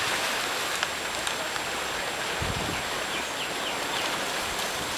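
Sea water washing and lapping against shoreline rocks: a steady rushing hiss.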